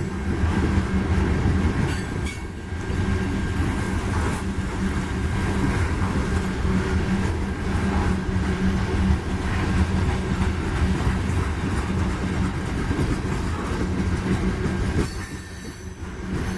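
Union Pacific freight train rolling past: a steady rumble of wheels on the rails with a low steady hum, dipping briefly in loudness near the end.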